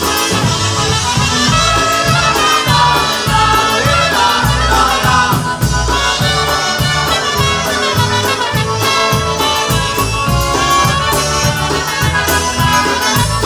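Live polka band playing a polka on two trumpets, accordion, concertina, electric bass guitar and drums, with a steady, even beat.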